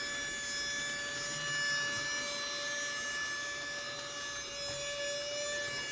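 Portable cordless handheld vacuum cleaner running steadily, a motor whine with several steady tones over a hiss of air, as its nozzle vacuums dust from a computer keyboard.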